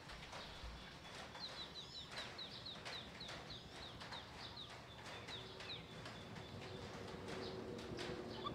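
A bird chirping: a quick run of short high chirps, about five a second for around three seconds, then a brief steady high whistle, over faint scattered clicks.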